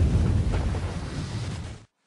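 Movie-trailer sound design: a deep, heavy rumble that fades away over about two seconds, then cuts off abruptly near the end.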